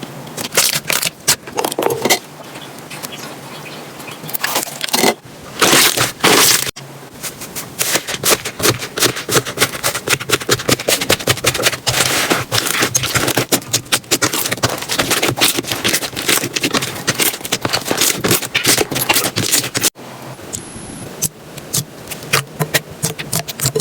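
Slime being squeezed, pressed and poked by hand, giving rapid crackling and popping clicks. The run of clicks breaks off abruptly a few times where short clips are spliced together.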